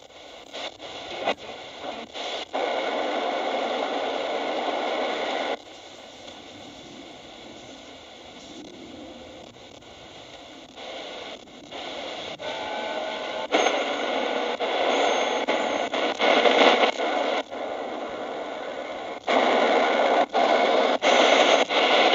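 Shortwave static and hiss from a small portable radio's speaker as its tuning knob is turned across the band. There are a few crackles at first, and the noise jumps abruptly louder and softer, dropping off suddenly after a few seconds and coming back loudest near the end.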